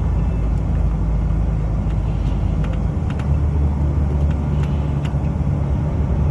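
Steady low rumble of a car driving on the road, with a few faint ticks.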